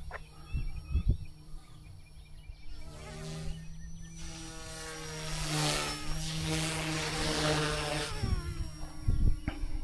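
RC helicopter's rotor and motor whine. It swells for a few seconds in the middle and shifts in pitch as the blades take load during a manoeuvre that doesn't come off for lack of enough negative collective pitch. A few low thumps come near the start and the end.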